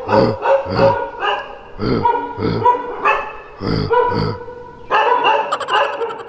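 A medium-sized short-haired dog barking repeatedly, about two barks a second, with a denser run of barking near the end.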